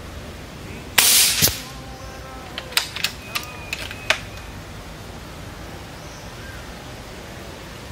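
A single shot from a suppressed Umarex Gauntlet II .30-calibre PCP air rifle about a second in, a sharp report with a second crack about half a second later. A quick run of sharp clicks follows two to three seconds in.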